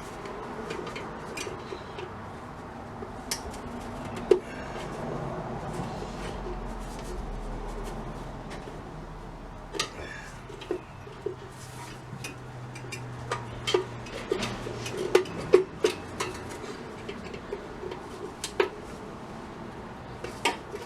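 Small metal parts of a vintage gumball machine's release mechanism clicking and clinking against each other and against tools as it is taken apart. The clicks are scattered, with a quicker run of them in the second half, over a faint low hum.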